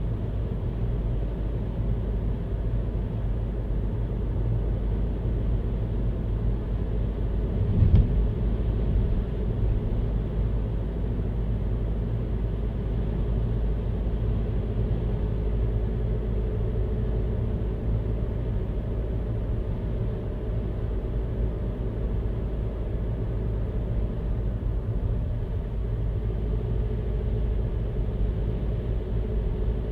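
Car driving, a steady low road and engine rumble, with one thump about eight seconds in.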